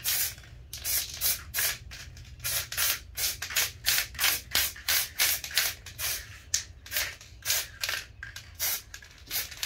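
Gold spray paint sprayed onto an epoxy surface in many short, quick bursts, about two to three a second, in a steady rhythm.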